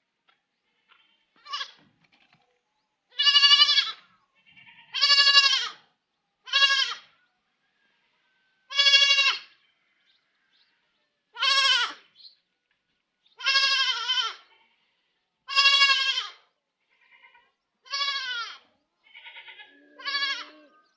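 A baby goat (kid) bleating over and over, about ten high, quavering cries each under a second long, roughly every two seconds.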